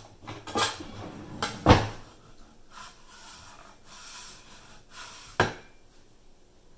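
A kitchen drawer is opened and utensils clatter as a metal bench scraper is taken out, with a loud knock about a second and a half in. Then the scraper scrapes across a wooden end-grain cutting board, and there is a sharp knock near the end.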